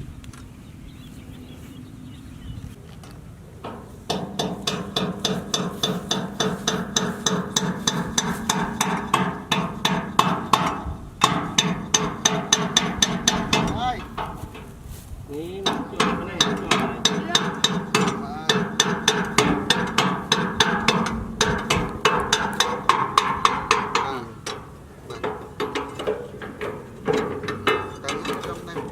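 Mini tractor running with a rapid, even knocking over a steady mechanical hum, starting about four seconds in. It breaks off briefly twice, and its pitch rises as it picks up again near the middle.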